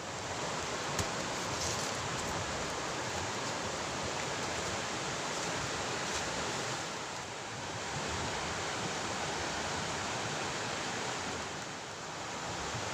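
River water flowing steadily, an even rushing hiss that eases slightly twice.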